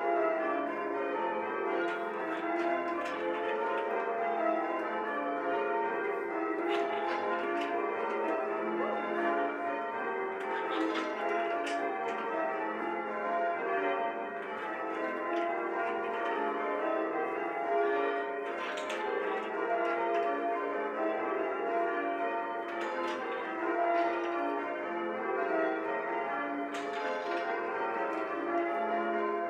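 Church bells rung in changes, full-circle change ringing: a continuous run of bell strikes with no break.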